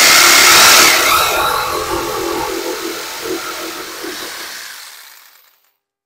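Corded jigsaw running and cutting a round disc out of a small wooden scrap, its blade stroking with a buzzing rattle. The noise is loudest at first, then slowly fades as the cut finishes and stops a little before the end.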